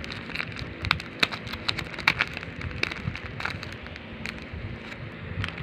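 Plastic packaging crinkling and crackling as it is handled and opened by hand, a run of irregular sharp crackles.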